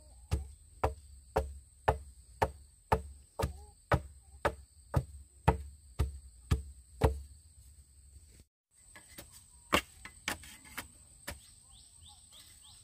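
Repeated sharp striking blows at an even pace of about two a second, like chopping, stopping about seven seconds in. After a short break there are a few scattered knocks and clicks. A steady high insect chorus runs underneath throughout.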